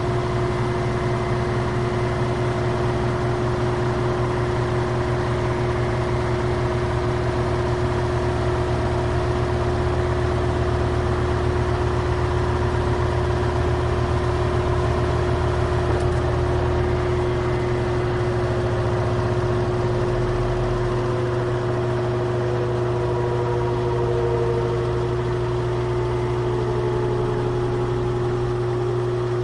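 Washing machine running: a steady motor hum over a low rumble, with faint tones sliding slowly in pitch in the last third.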